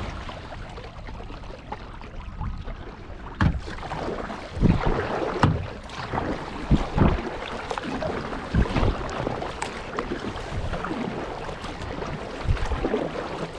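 Kayak paddle strokes dipping and splashing in lake water, an uneven stroke about every second that starts a few seconds in, over a steady rush of water and wind.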